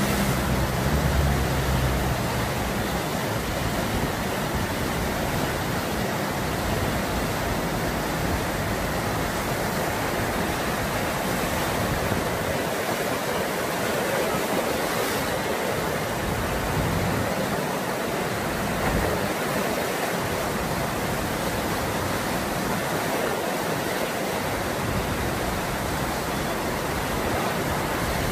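Steady rushing of white water at the Eisbach standing river wave, an even, unbroken noise of water pouring over the step in the channel, with a little extra low rumble in the first couple of seconds.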